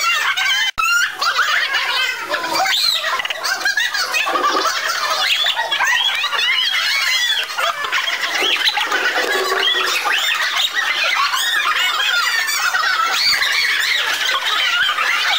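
Crowd of children shrieking and shouting excitedly, many high voices overlapping without a break, with a brief cut in the sound about a second in.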